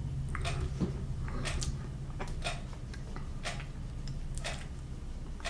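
Soft, regular ticks about once a second over a low steady hum.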